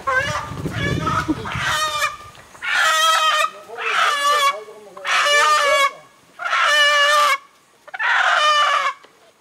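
A chicken squawking in a series of loud, drawn-out calls, about one every second and a quarter.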